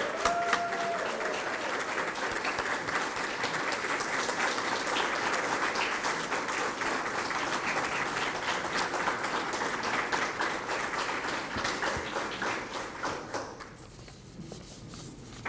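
Audience applauding, a dense patter of many hands clapping that thins out and dies away about fourteen seconds in.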